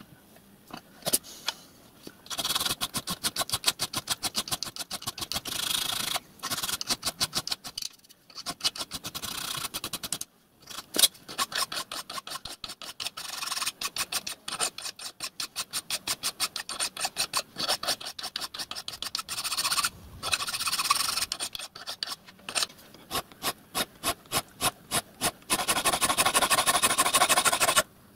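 A hand file rasping back and forth on a small piece of thin brass sheet clamped in a bench vice, in fast, even strokes broken by a few short pauses, with a dense unbroken run near the end.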